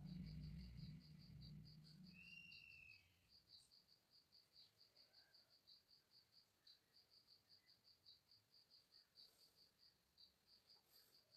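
Faint, steady insect chirping, short high chirps about three a second, like a cricket. A low hum in the first three seconds fades out.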